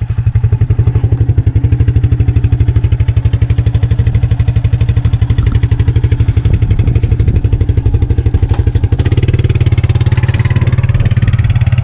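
Echo CS-590 Timberwolf two-stroke chainsaw running steadily in a chainsaw mill, ripping a cedar log into boards. Its note shifts slightly about nine seconds in.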